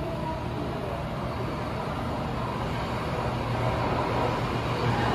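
Osaka Metro 22 series subway train approaching through the tunnel, a steady rumble that grows gradually louder.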